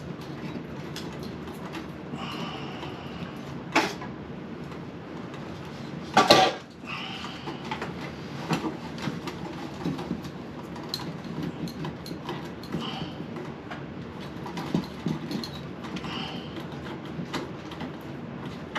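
Scattered knocks and clatter of things being handled, with a sharp click about four seconds in and a louder bang about six seconds in.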